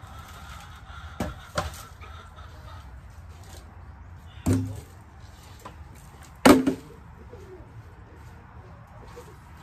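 Plastic milk crates knocking and clattering as they are handled: two light taps about a second in, then two louder knocks about four and a half and six and a half seconds in, the second the loudest.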